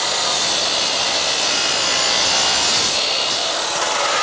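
Power miter saw running at full speed, its blade cutting through a length of crown molding in a compound miter cut. Loud and steady throughout.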